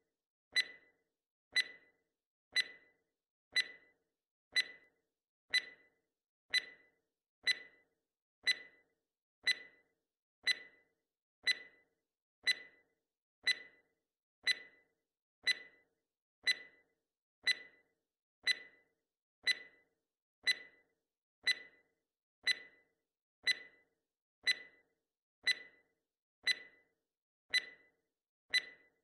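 Countdown timer sound effect ticking: a sharp clock-like tick once every second, evenly spaced.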